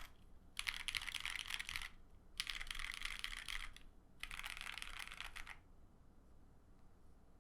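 Mechanical keyboard with lubed Lavender linear switches in a POM plate and GMK keycaps: three quick rolls of keystrokes across the home row (a-s-d-f-g-h-j-k-l), each lasting just over a second, then no more typing from about two thirds of the way in.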